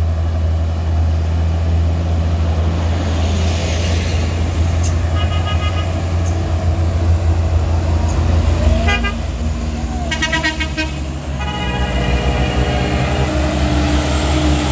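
Light trucks' engines running steadily under load as they climb a steep grade, a continuous low drone. Vehicle horns sound over it: short toots about five seconds in and again around nine seconds, a quick series of beeps around ten to eleven seconds, then a longer horn from about twelve seconds.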